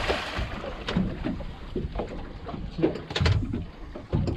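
Water sloshing against the hull of a small fishing boat at sea, with a few irregular knocks.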